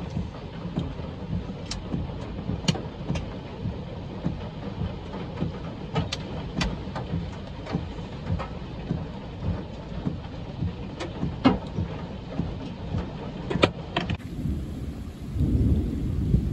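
Heavy rain and large hail, stones about 1.25 inch across, coming down in a microburst's strong wind. The wind makes a dense low rumble, and hailstones striking hard surfaces give many scattered sharp cracks. Near the end the sound cuts abruptly, and a deep low rumble swells up.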